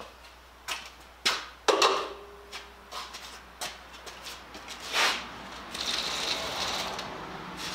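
Steel clanking and knocking as a magnetic holder is set against sheet steel and moved around on a welding bench. One sharp clank about two seconds in rings briefly. A steady hiss lasts about two seconds near the end.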